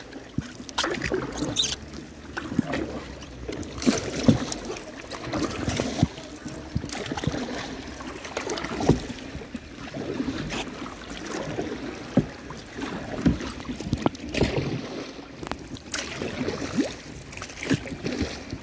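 Kayak paddle strokes in calm water: irregular dips and splashes about every second, with occasional sharper knocks of the paddle, over a steady wash of water against the hull.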